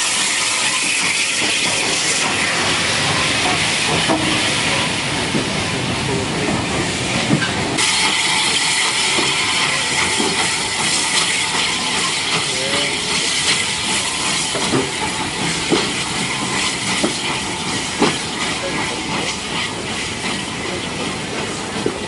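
Steam train running past: a steady hiss of steam from the locomotive, with the coaches' wheels knocking now and then over the rail joints in the second half.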